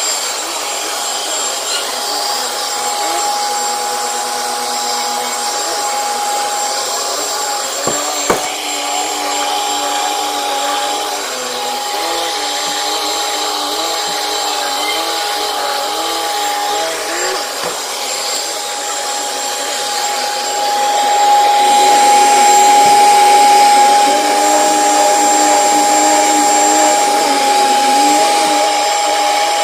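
Commercial vacuum cleaner running steadily over carpet with a steady whine, getting louder about two-thirds of the way through. One sharp click about a quarter of the way in.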